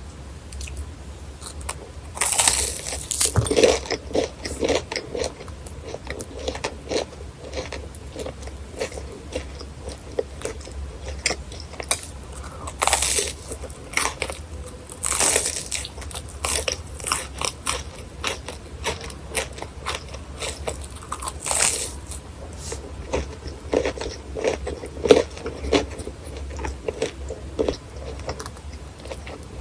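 Crispy fried churros bitten and chewed close to the microphone: a few loud crunching bites with crisp crackling chews in between, over a faint low steady hum.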